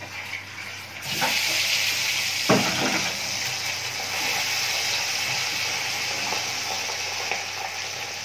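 Fish pieces frying in hot oil in a kadai: a steady hissing sizzle that starts abruptly about a second in as the fish goes into the oil. A single knock comes about a second later.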